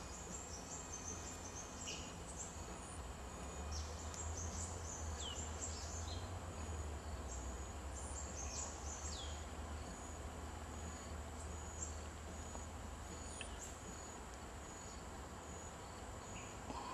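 Outdoor nature ambience: a steady high-pitched insect drone with many short, high chirps that slide down in pitch, over a low rumble that swells for a few seconds in the middle.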